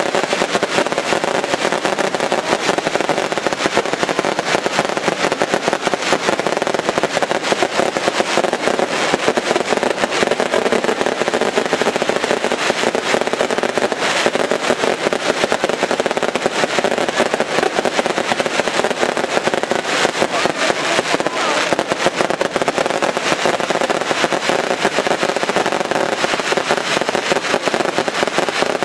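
Daylight fireworks display: an unbroken barrage of bursting shells and firecrackers, a dense rapid crackle and banging at a steady loudness, with a few sharper cracks standing out.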